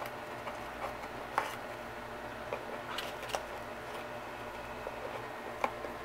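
A conure's beak chewing and tearing at a cardboard box: irregular clicks and crunches, the loudest about one and a half seconds in, over a steady hiss.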